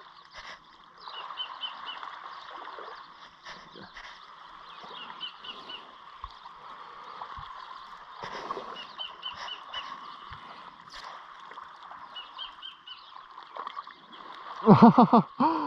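A bird repeating a short call, a quick run of about four high pips every three to four seconds, over faint steady outdoor noise. Near the end a man's voice gives a brief, loud exclamation.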